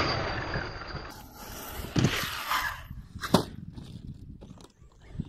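Electric Traxxas X-Maxx 6x6 RC monster truck driving hard across grass, its motor and tyres tearing through dirt, the sound fading as it moves away. A thud comes about two seconds in and a sharp knock a little over three seconds in.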